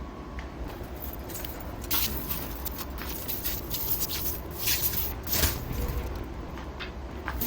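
Metal scraping and clinking irregularly, like steel parts or tools being handled, over the steady hum of machine-shop machinery. The clinks begin about two seconds in, and the loudest is near the middle.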